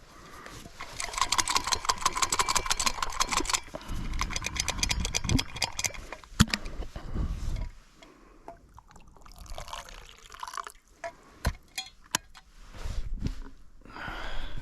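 Hot tea being poured into a cup, a fluttering pour of a few seconds starting about a second in, followed by rustling and several sharp clicks and knocks.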